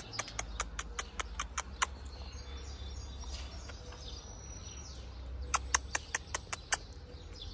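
Quick runs of sharp mouth clicks, about five a second, made by a person coaxing a dog: one run in the first two seconds, another a little past the middle.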